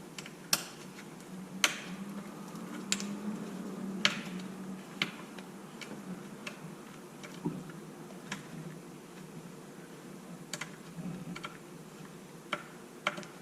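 Scattered sharp clicks and light taps, a dozen or so at irregular intervals, from hand tools and small screws on the RC truck's plastic and metal rear-end parts as screws are backed out.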